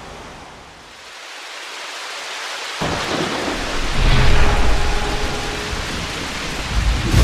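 Thunderstorm: rain hiss swelling up, then a deep, loud rumble of thunder rolling in from about three seconds in.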